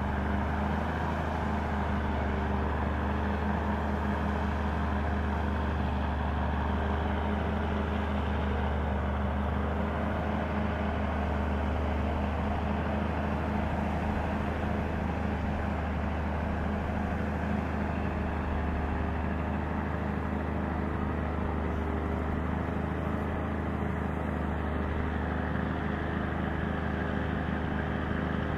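Steady low drone of a motor vehicle's engine with road noise, holding an even pitch and level.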